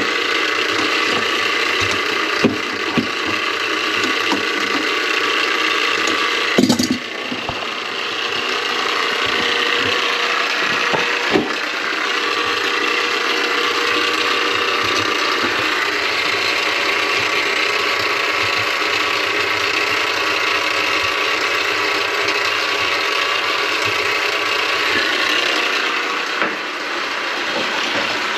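A motor-driven drain-cleaning machine runs steadily, rattling mechanically, with a few sharp knocks, the loudest about seven seconds in. It is clearing a kitchen sink drain line clogged with grease.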